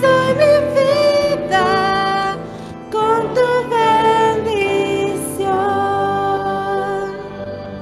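A woman singing a slow worship song into a microphone over instrumental accompaniment, with wavering, long-held notes. The last phrase ends and the music fades near the end.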